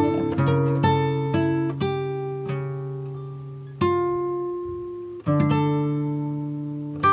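Background instrumental music on a plucked string instrument: a run of plucked notes, then single notes struck about four and five seconds in that ring and fade, before the playing picks up again near the end.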